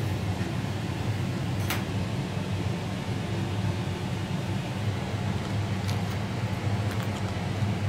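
Steady low hum of a ventilation fan, with a few light clicks of cutlery against a plate, the clearest about two seconds in.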